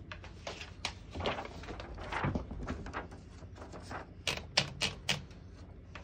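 Paper being loaded into a 1958 Royal Speed King portable typewriter: the platen turns with a string of small ratcheting clicks and paper rustle. About four seconds in there is a quick run of louder clicks.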